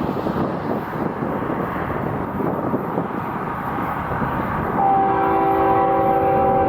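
Diesel locomotive's air horn sounds a steady multi-note chord starting about five seconds in, over the steady rumble of a train.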